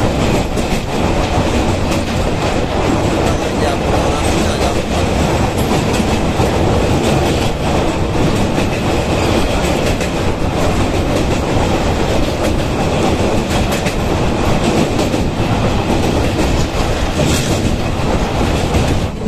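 Passenger train running at speed over a steel truss girder bridge: a loud, steady rumble of coach wheels on the rails with rapid clickety-clack, and a brief sharper burst near the end.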